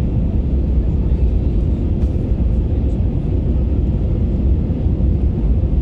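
Steady low rumble of engine and airflow noise inside an Airbus A321neo airliner's cabin in flight during approach.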